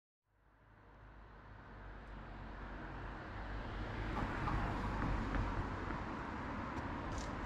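Outdoor street ambience fading in from silence over the first few seconds: a steady low rumble of distant road traffic with a faint hiss on top.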